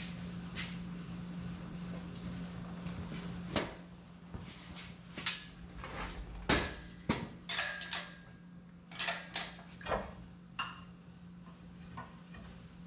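Metal tools and loose steel parts clinking and clanking, with about a dozen irregular knocks bunched in the middle and a few ringing briefly, over a steady low hum.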